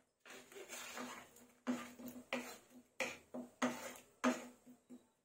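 Thick tomato-onion masala being stirred in a nonstick kadai, the utensil scraping and slapping through the paste. It starts as a continuous rustle, then about a second and a half in turns into a run of distinct strokes roughly every two-thirds of a second.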